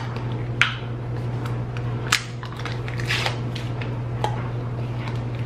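A plastic gummy-vitamin bottle being handled and opened: scattered clicks and crackles from the plastic cap and container, the sharpest about two seconds in, over a steady low hum.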